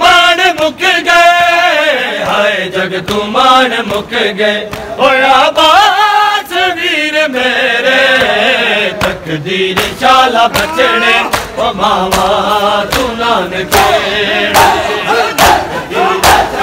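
A group of men chanting a noha, a mourning lament, in unison. From about halfway, sharp rhythmic slaps of hands striking bare chests in matam keep time, roughly two a second.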